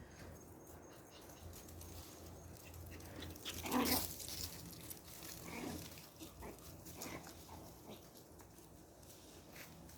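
Pomeranian puppy yipping: one loud high yip about four seconds in, then two fainter ones.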